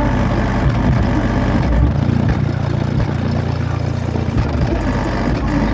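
Car-audio subwoofers, twelve-inch Resilient Sounds Platinums, playing loud, deep bass notes that are held for a second or two at a time and change pitch several times.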